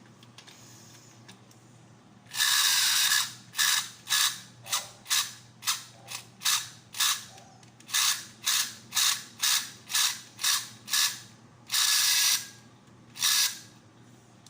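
A horse-race toy's small electric motor and plastic gears run in about eighteen short bursts of rattling. The bursts begin about two seconds in, with a longer run near the start and another near the end. This is the unwanted motor noise that is being tracked down.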